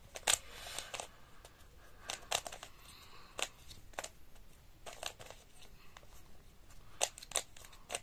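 A stickerless 3x3 plastic puzzle cube being turned by hand, its layers clicking and scraping in quick, irregular turns.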